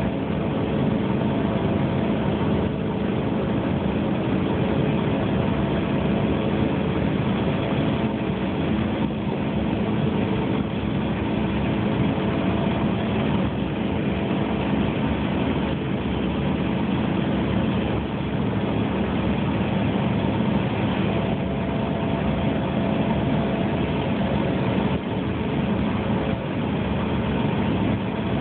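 Steady cabin drone of a Bombardier CRJ200 regional jet's two rear-mounted General Electric CF34 turbofan engines, heard from inside the cabin. There is an even rush with several constant hums underneath, and the sound holds steady.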